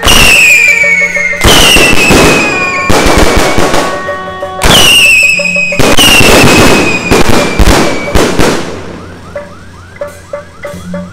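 Four loud whistling fireworks go off in quick succession, each a whistle falling in pitch over about a second followed by crackling. The bursts fade after about eight seconds, and music with percussion comes back near the end.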